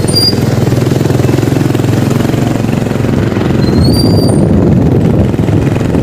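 Motor scooter engine running as it rides slowly, with a fast, even pulsing. A brief high squeal rises about four seconds in.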